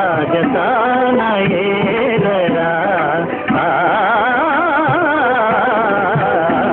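Old Indian film-song music: a wavering melody with strong vibrato over tabla strokes, muffled with no treble as on an old film soundtrack.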